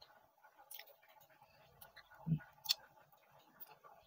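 Quiet eating sounds from a person eating a small avocado with a metal spoon: soft mouth sounds and a few faint clicks, with a soft thud a little past halfway.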